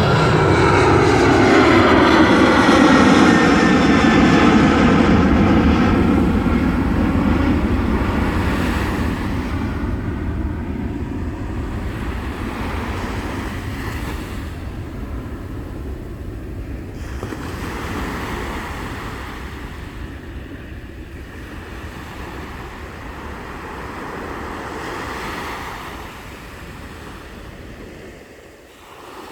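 Jet airliner passing low overhead: a loud engine rumble with a whine that falls in pitch as it goes by, then fades slowly into the distance.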